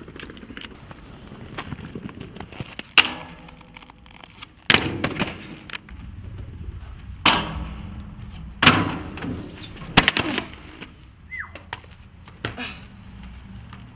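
Inline skates rolling on hard ground, with about five sharp clacks and thuds from skate frames and wheels striking the ground as tricks are landed.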